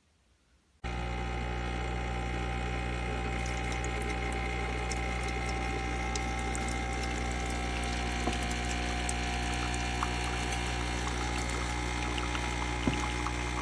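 Cuisinart SS-10 single-serve coffee maker brewing: its water pump starts suddenly about a second in and runs steadily with a low hum while coffee streams into the cup, with occasional faint clicks.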